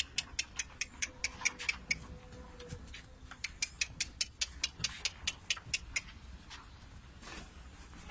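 Sahiwal bull suckling at a cow's udder: quick wet smacking clicks of its mouth on the teat, about five a second, in two runs with a short pause between, stopping about six seconds in.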